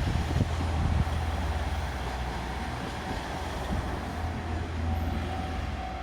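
KiHa 40 and KiHa 47 diesel railcars running past with a deep, steady engine rumble and a few clicks from the wheels over the rail joints in the first second. A level crossing alarm rings faintly throughout, its ringing more clearly pulsed near the end.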